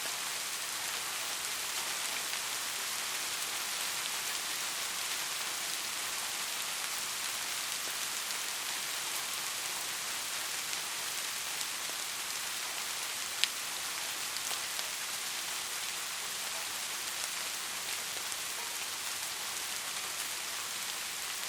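Steady rain falling, an even hiss with scattered drop ticks, one sharper drop striking about two-thirds of the way through.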